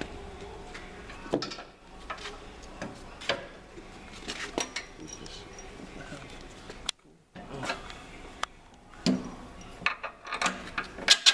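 Scattered metallic clinks and knocks from a tyre changer's assist arm being set in place on the machine and its mounting bolts being handled, with a quick run of sharp clicks near the end.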